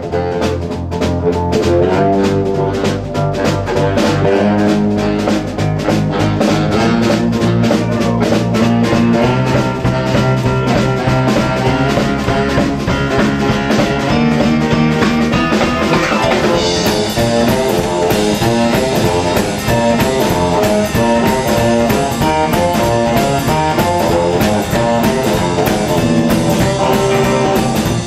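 Live instrumental garage swing from a small band: a hollow-body electric guitar, an upright double bass, a drum kit and a baritone saxophone playing together with a steady swinging beat.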